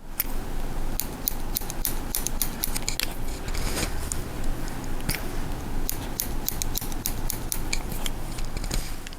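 Hairdressing scissors snipping short hair in quick runs of sharp cuts.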